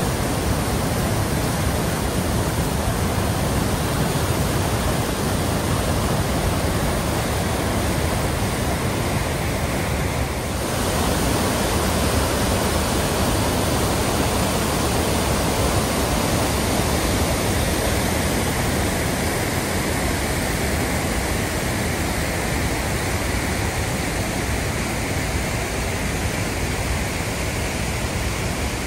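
Swollen, muddy floodwater rushing over a low weir and then over a wide rocky waterfall: a loud, steady rush of water, the river in flood after hurricane rain. The sound shifts slightly about ten seconds in.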